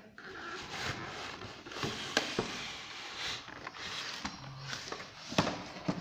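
Cardboard packaging rustling and scraping as a toy RC rock crawler truck on its cardboard insert is pulled out of the box. Two sharp knocks stand out, one about two seconds in and a louder one near the end.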